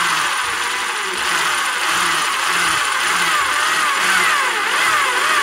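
Electric hand drill running with a small bit, boring into the wooden body of a phin. It drills a row of close-set holes along a marked circle. The motor's whine repeatedly slides down in pitch as the bit bites and jumps back up.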